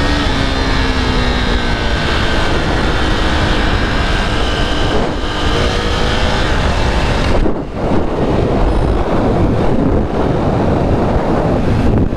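KTM RC motorcycle running at road speed, heard from the rider's seat under heavy wind noise on the microphone. The sound dips briefly about seven and a half seconds in.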